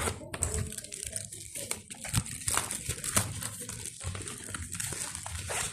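Plastic packaging crinkling and rustling in irregular bursts as a parcel is handled and opened.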